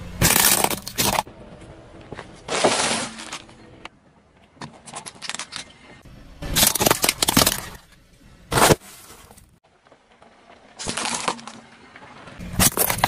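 Hard plastic objects, toy parts and disposable lighters, cracking and crunching as a car tyre rolls over them. The crushes come as several separate crackling bursts with short pauses between.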